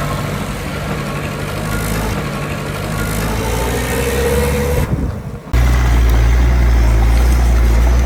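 Diesel engine of heavy earthmoving machinery running at work. About five seconds in the sound drops briefly, then cuts abruptly to a louder, steady engine hum.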